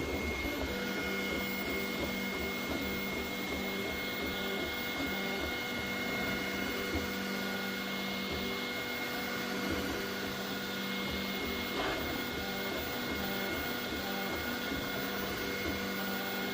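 Creality Ender 3 V3 Plus 3D printer running with a steady whine of several held tones over a mechanical grinding noise, an unwanted grinding that marks a fault in the machine.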